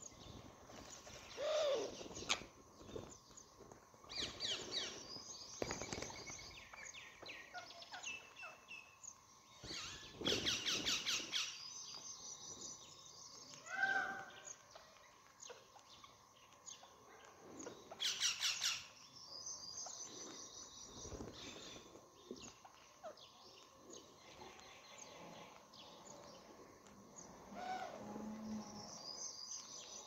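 A flock of rose-ringed parakeets calling with scattered chirps throughout, and loud shrill screeching bursts about ten and eighteen seconds in.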